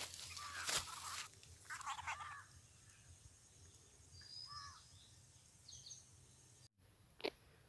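Crows cawing faintly a few times, with a short burst of rustling noise near the start and a single sharp click near the end.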